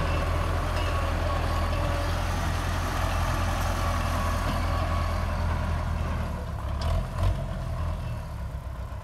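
Belarus tractor's diesel engine running steadily as it pulls a laser land leveler through loose soil. It grows fainter over the last few seconds as the tractor moves away, with a couple of brief knocks about seven seconds in.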